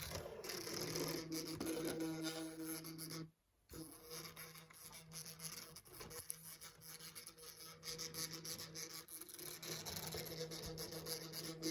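Vintage 1980s Hornby HST model locomotive's electric motor humming with a scratchy, rasping grind as it strains to move but doesn't get going. The hum cuts out for a moment about three seconds in. The owner thinks the loco needs a clean.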